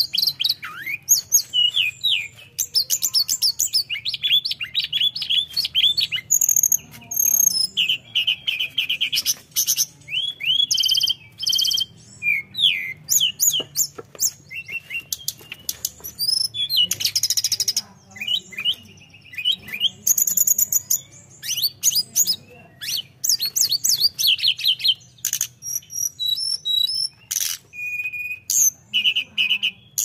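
Male blue flycatcher (tledekan) singing almost without pause. Its song is a fast, varied run of high chirping notes, quick glides and rapid trills, with only brief breaks between phrases.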